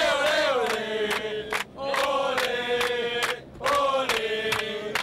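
A group of men, football players celebrating promotion, chanting and singing together in unison in an airliner cabin. The chant comes in three long held phrases with brief breaks between them.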